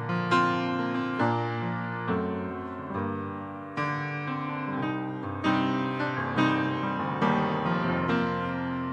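Slow, gentle piano music: single notes and chords struck about once a second, each left to ring and die away.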